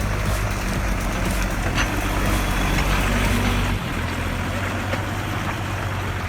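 Old logging truck's engine running steadily under load, with road and mechanical noise; the engine note drops a little about four seconds in.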